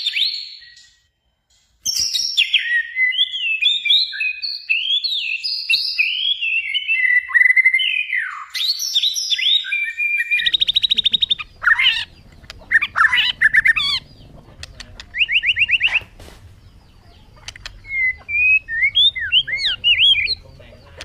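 White-rumped shama (murai batu) singing a varied run of loud whistled phrases that glide up and down in pitch. The song stops briefly and starts again about two seconds in. About halfway through, the recording changes to one with a low background hum, with fast buzzy trills and short sharp notes.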